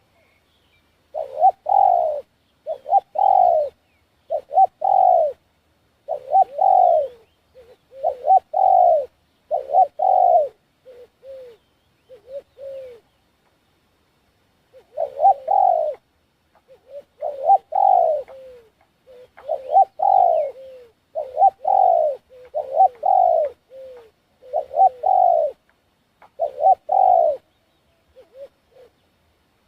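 A dove cooing loudly and close, repeating its coo phrase about every one and a half seconds, with a short pause partway through and a few softer coos near the end.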